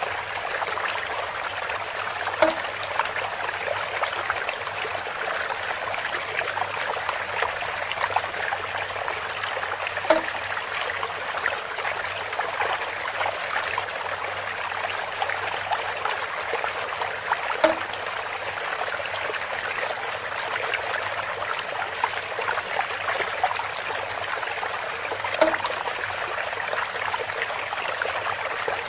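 Water trickling and splashing steadily through a bamboo water feature. A short, pitched knock comes four times, about every seven and a half seconds.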